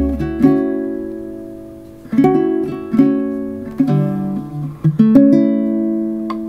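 Background music of plucked acoustic guitar chords, each ringing out and fading before the next is struck.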